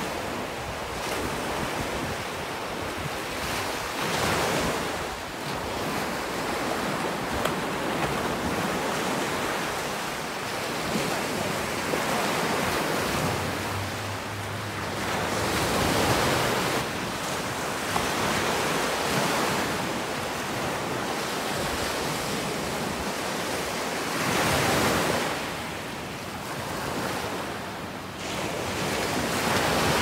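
Small ocean waves breaking and washing up a sandy beach, the surf swelling and easing every few seconds.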